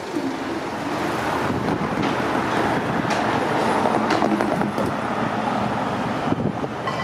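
Road and rail traffic noise: a steady rumble of passing vehicles that builds over the first few seconds, with a few sharp knocks near the end.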